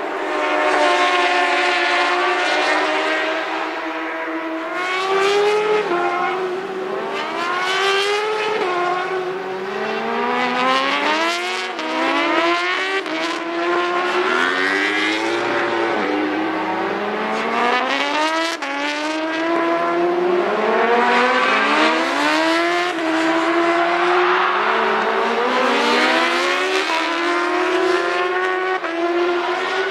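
Racing superbike engines revving hard as several bikes pass one after another, each climbing in pitch, dropping at a gear change and climbing again.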